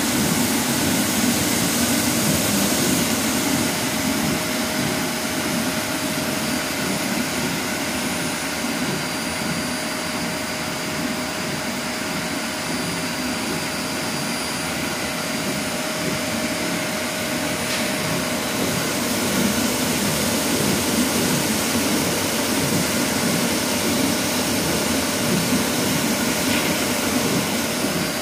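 A 30 kg chocolate melanger running, its electric drive turning the stainless drum as it grinds cocoa shells: a steady whirring grind with a thin, faint high whine over it.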